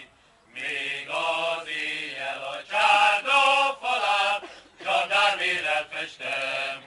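A man singing unaccompanied in Hungarian, in short phrases separated by brief pauses, starting about half a second in.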